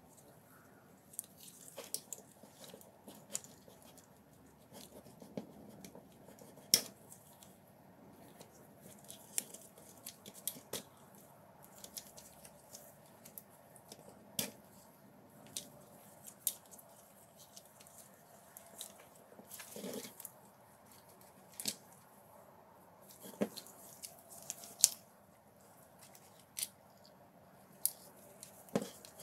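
Irregular small clicks, taps and soft scuffs as the opened plastic housing of a DeWalt drill and its internal wires are handled with gloved hands. The clicks come singly, a second or two apart, with a sharper knock about a quarter of the way in and another near the end.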